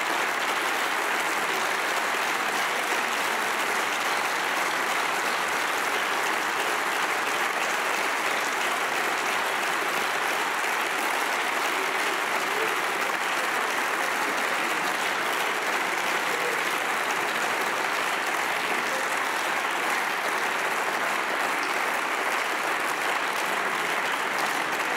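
Long, steady applause from many members of parliament clapping in a large chamber, greeting a vote result.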